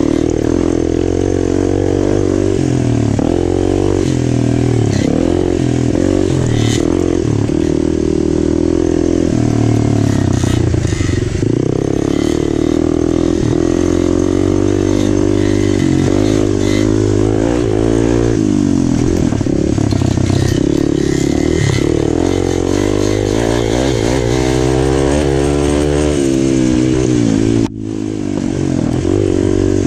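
Kawasaki dirt bike engine ridden hard on a trail, its pitch rising and falling as the throttle opens and closes through the turns. Near the end the sound cuts out sharply for a moment, then picks up again.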